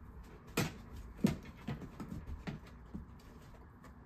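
A large dog's paws knocking on a plastic bowl as it steps up onto it: a series of about six knocks, the two loudest about half a second and a second and a quarter in, then softer ones.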